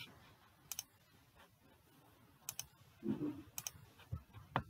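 Computer mouse clicking three times, each click a quick press and release, with a soft low thump near the end.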